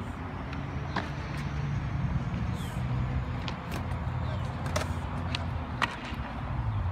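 Kick scooter wheels rolling over a concrete skate bowl, a steady low rumble, with a few sharp clicks and knocks, the loudest near the end.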